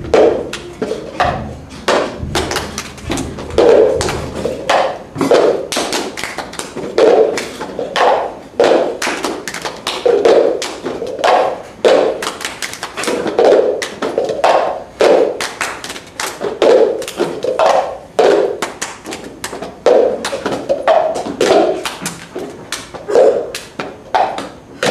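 Plastic cups tapped and knocked on a hard floor by five players in the cups rhythm game. Quick taps and claps run in a steady rhythm, with a heavier thud recurring about every second and a half as the cups are passed around the circle.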